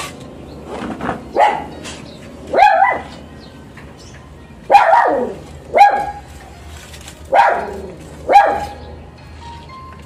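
A dog barking, about seven barks at irregular intervals.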